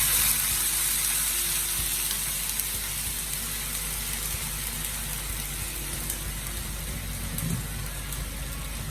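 Water hitting a hot pan of frying pork: a loud sizzle at first that settles over several seconds into a steadier, quieter sizzle as the liquid takes over.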